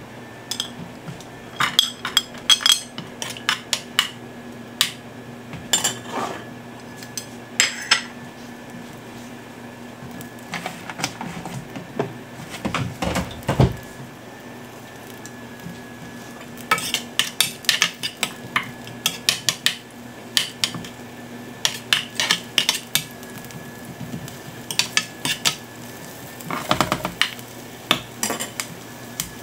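A cooking utensil clinking and scraping against a nonstick frying pan in quick clusters of taps as chopped onion is tipped into the oil and stirred, with one duller knock about halfway through. A steady faint hum runs underneath.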